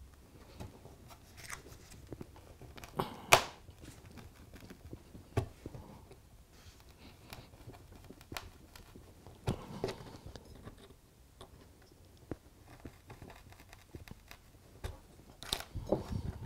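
A bradawl being pressed and twisted into a wooden baseboard, making pilot holes for a point motor's screws: scattered faint crunching scrapes and a few sharp clicks, the sharpest about three seconds in and several more near the end.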